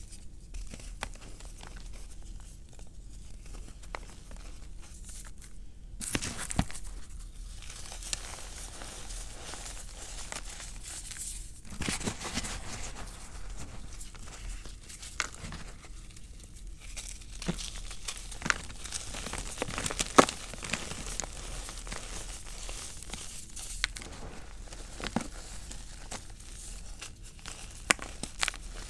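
Fingers crushing and crumbling pieces of cornstarch and gym chalk into powder: a dense run of crisp crunches and crackles, with now and then a sharper louder crack, the loudest about twenty seconds in.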